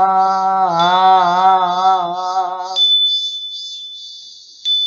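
Goeika Buddhist hymn chanting: a voice holds a long, wavering note that ends about three seconds in. A small bell is struck then and rings on, and is struck again near the end.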